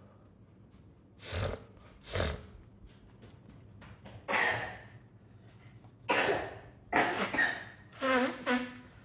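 A person coughing and breathing out in several short bursts, with a brief voiced sound near the end.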